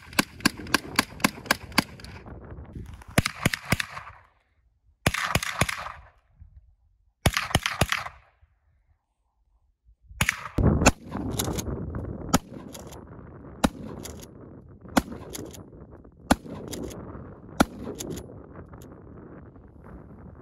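Gunfire from a semi-automatic carbine: fast strings of shots, about five a second at first, then short bursts broken by edits. After that come single shots about a second and a half apart.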